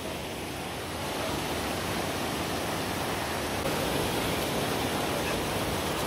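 Rushing river water: a steady, even hiss that gets a little louder about a second in.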